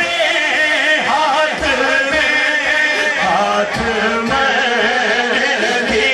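Male voice singing a devotional naat into a microphone, with a wavering, ornamented melody.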